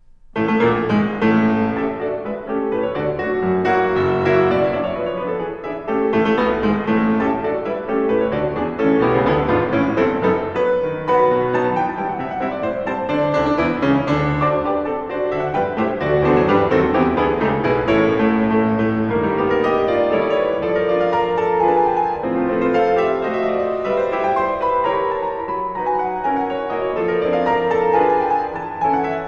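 Classical solo piano music with many quick notes, starting abruptly just after the start.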